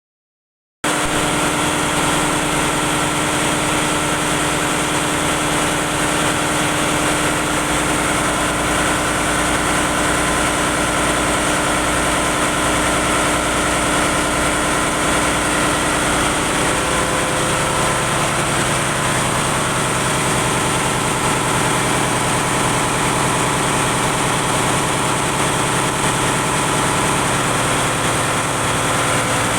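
Ship's engine-room machinery running loud and steady, a dense drone of engines with a constant high hiss; a little past halfway the mix of steady tones shifts slightly.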